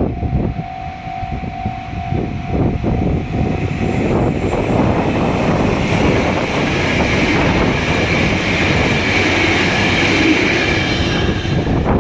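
A level crossing warning bell rings for the first few seconds. From about four seconds in, a JR Hokkaido KiHa 261 series 5000 diesel limited express passes over the crossing, its engine and wheel noise loud and continuous.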